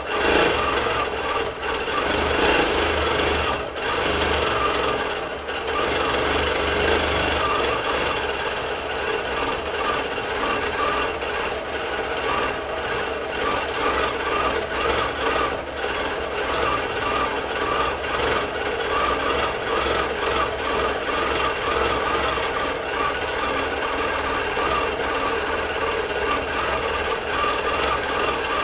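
Bernina longarm quilting machine stitching in stitch-regulated mode: the motor runs steadily and the needle stitches in a fast, even rhythm as the head is guided through free-motion spirals.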